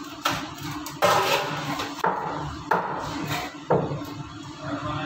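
Heavy cleaver chopping white pomfret on a wooden block: about five sharp, separate strokes roughly a second apart, each with a short ringing tail.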